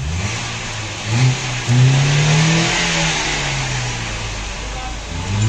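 Toyota Corolla engine being revved: quick blips of the throttle about a second in, a rise held for a couple of seconds, then the revs sinking slowly before another blip near the end. The engine's exhaust valves have no clearance, the fault behind its uneven revs, jerking and poor pick-up.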